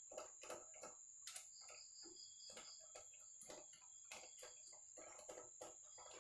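Faint, irregular clicking of a hand ratchet and socket loosening the cylinder-head bolts on a motorcycle engine, about two to three clicks a second. A steady high cricket trill runs underneath.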